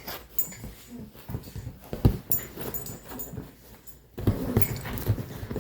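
Dogs playing: scuffling and irregular knocks mixed with dog sounds, with one sharp knock about two seconds in and a busier flurry near the end.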